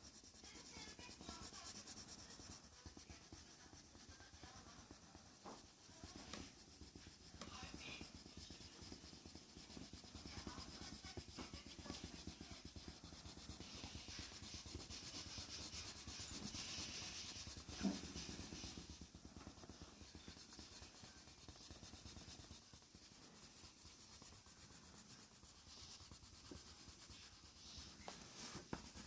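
Faint rubbing and scratching of a drawing tool across paper as strokes are drawn, swelling and fading, with one soft tap about eighteen seconds in.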